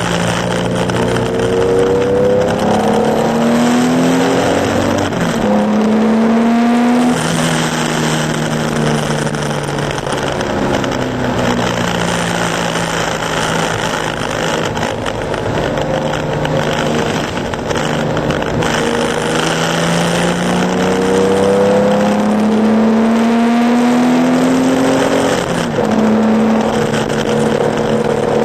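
Air-cooled two-litre flat-six of a classic Porsche 911 racing on a soaked track. The engine note climbs and drops back at each gear change, eases off once in the middle, and runs under a steady hiss of water spray.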